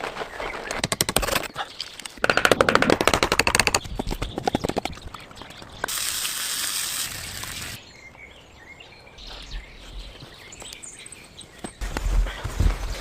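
Rapid runs of sharp knocks and clicks, then a steady hiss lasting under two seconds, then birds chirping faintly with a low thump near the end.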